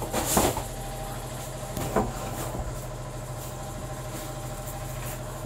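Steady hum of a running engine, with a couple of short knocks, one just after the start and one about two seconds in.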